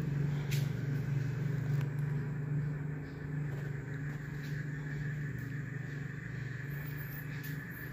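A steady low hum over a faint even background noise, with a couple of faint ticks in the first two seconds.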